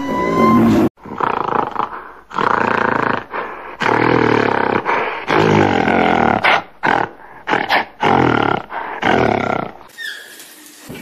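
Gorilla giving a run of about ten rough, roar-like calls, each under a second, with short gaps between them. Just before them, a whining call with gliding pitch breaks off about a second in.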